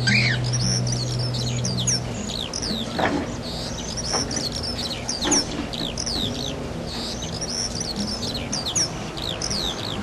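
Birds chirping: many short, high chirps, most sliding quickly downward, repeated throughout over soft music whose low held notes fade out about two seconds in.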